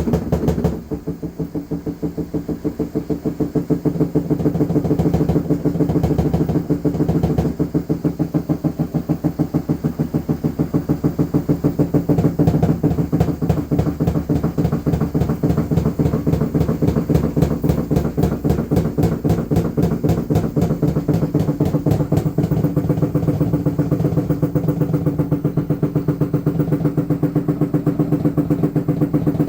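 LG washing machine running with a loud, fast rhythmic pulsing, several beats a second over a steady low hum. This is a noise that has been getting worse.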